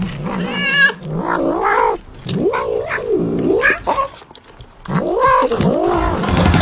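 A domestic cat yowling in about four drawn-out calls that rise and fall in pitch.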